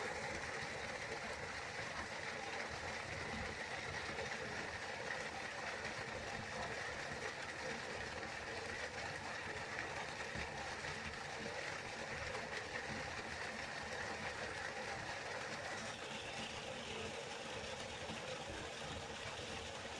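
River water flowing: a steady, unbroken rush of running water.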